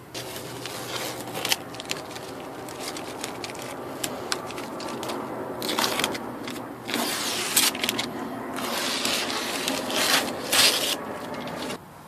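Rubbing and scraping handling noises close to the microphone, with many scattered clicks and several louder stretches of rubbing in the second half.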